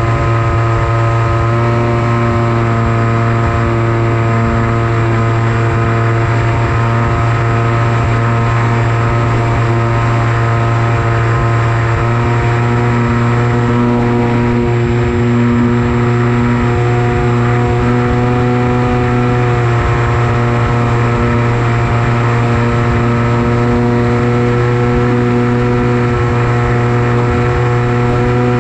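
Electric motor and propeller of an FPV flying wing running steadily in flight, a constant drone whose pitch shifts only slightly, over a steady rush of air.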